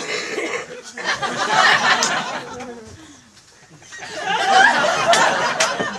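Audience laughing, swelling twice: first about a second in, then again from about four seconds in.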